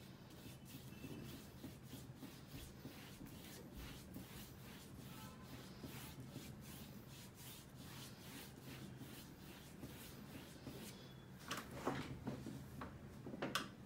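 Paintbrush dabbing and scrubbing paint onto the painting surface: a quick run of faint scratchy strokes over a low steady hum, with a few louder rustles near the end.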